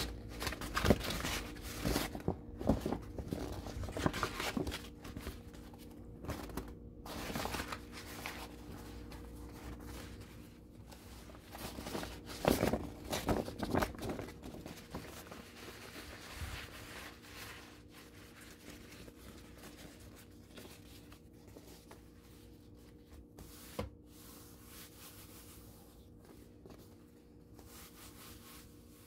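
Sheets of Japanese kneaded paper (momigami) rustling and crinkling as they are lifted, turned over and laid down by hand. The rustles are busiest in the first half and grow sparser later, with a single sharp tap late on.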